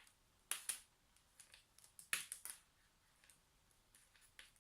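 A dropped 2.5-inch laptop hard drive clicking as it tries to spin up and be recognised: the clack of a drive damaged by a fall. Irregular sharp clicks, a pair about half a second in and a quick run of three about two seconds in, with fainter ones between.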